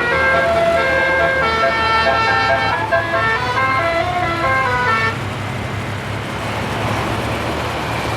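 A bus's 36-note telolet basuri musical air horn playing a quick melody of stepped notes, which stops about five seconds in and gives way to a steady rushing noise.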